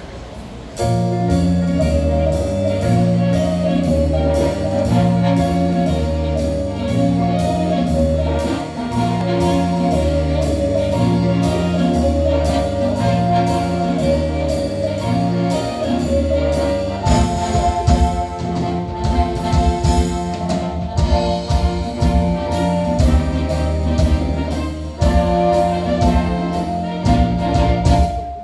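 Instrumental introduction by a band with brass and drums, with a steady beat and a bass line; the drumming gets busier about halfway through.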